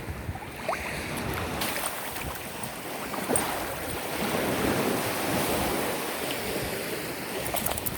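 Ocean surf washing on a beach, with wind on the microphone.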